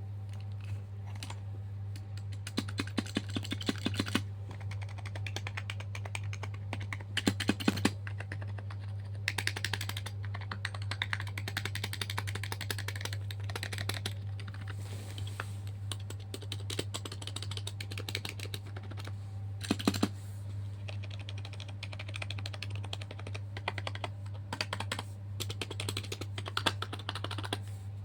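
Typing on a computer keyboard: runs of quick key clicks in bursts of a second or several seconds, with short pauses between, over a steady low hum.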